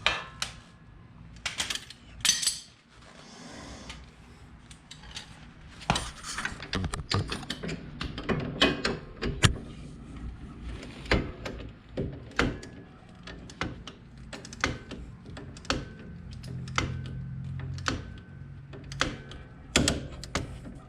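Ratchet wrench clicking and sockets and metal tools clanking as suspension bolts are worked on, with many sharp irregular clicks and knocks that come thicker after about six seconds in.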